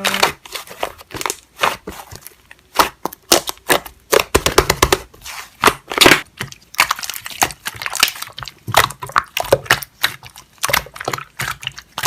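Slime being squeezed and pressed by hand, giving an irregular run of sharp clicks and pops.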